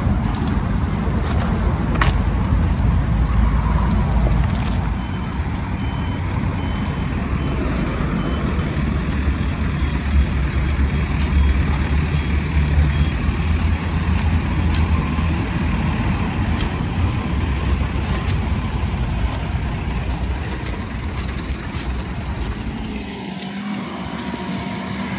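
Steady street noise of road traffic going by, with a deep rumble throughout.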